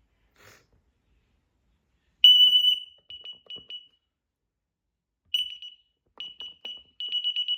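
DSC Impulse self-contained wireless alarm panel sounding high-pitched beeps as its panic alarms are tested. A long beep comes about two seconds in, followed by three short ones; another long beep follows, then a quick run of short beeps in the last two seconds.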